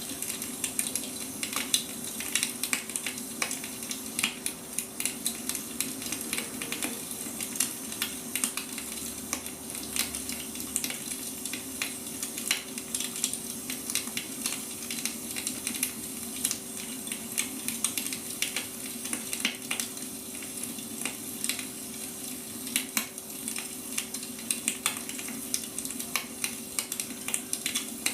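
Wood fire crackling steadily, a dense run of small irregular crackles over a steady low hum.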